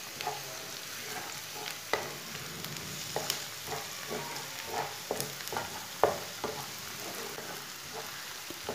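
Chopped onion and garlic sizzling gently in oil in a non-stick frying pan, stirred with a wooden spatula that scrapes and taps against the pan every second or so.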